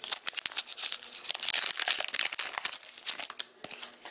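Foil trading card pack wrapper crinkling and tearing as it is ripped open by hand. It is a dense run of crackles and rustles, loudest in the middle, then it tails off.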